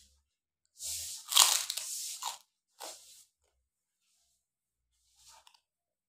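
Biting into and chewing a krupuk, a crisp Indonesian fried cracker. There is a loud crunch about a second in that lasts over a second, a shorter crunch near three seconds, and a faint one near the end.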